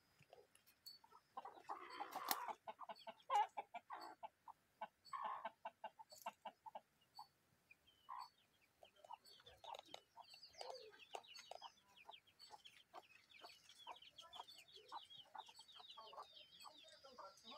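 Chickens clucking faintly in strings of short clucks, loudest a couple of seconds in; rapid high chirping joins in over the second half.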